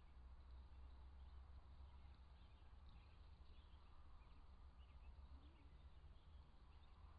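Near silence: faint outdoor background with a steady low rumble and a few faint, short high chirps.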